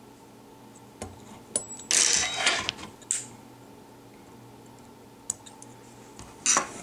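Small fly-tying tools handled at the vise: a few light clicks, a short clatter about two seconds in, then a snip as scissors cut the tying thread at the fly's head after the whip finish.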